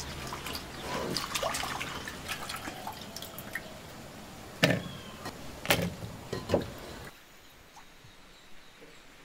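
Hands washing vegetable pieces in water in a clay bowl: small splashes and drips, with a few sharper, louder sounds about halfway through.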